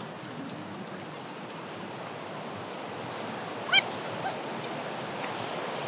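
Steady wash of surf and wind on an open beach. A little under four seconds in, a dog gives one short high yip, then a fainter one just after.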